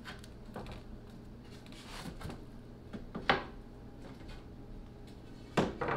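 Light knocks and scrapes of a wooden strip and pencil handled on a plywood panel, over a faint low hum; the sharpest knock comes about three seconds in, another near the end.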